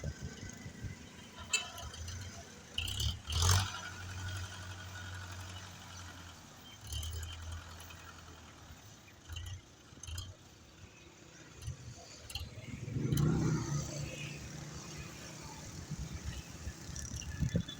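Tractor's diesel engine running with a low, steady note, amid scattered knocks and clatter; about thirteen seconds in the engine note rises and grows louder for a couple of seconds.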